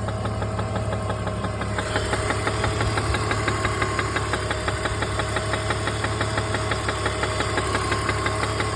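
BMW E46 330's engine running steadily with a fast, even ticking tap over its hum, the knock, tap or rattle the owner is chasing. The ticking becomes plainer about two seconds in.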